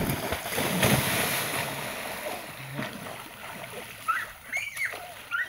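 A person jumping into a river: a big splash right at the start that fades over about two seconds into water sloshing, with brief voice sounds near the end.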